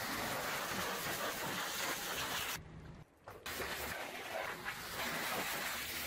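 Pressure-washer lance spraying a high-pressure water jet onto a truck's metal bodywork, a steady hiss. It breaks off for under a second about two and a half seconds in, then carries on.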